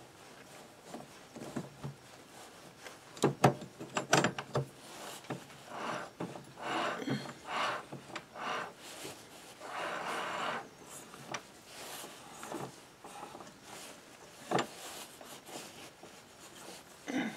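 Metal engine parts being handled by hand as the flywheel (alternator rotor) of a Yamaha YBR 125 is fitted onto the crankshaft. A cluster of sharp clicks and knocks comes a few seconds in, then scraping and rubbing, then single knocks near the end.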